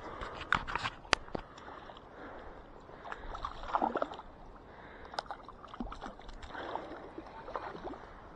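Small rainbow trout splashing and thrashing at the water's surface in irregular bursts as it is reeled in on a spinning rod, with a few sharp clicks about a second in.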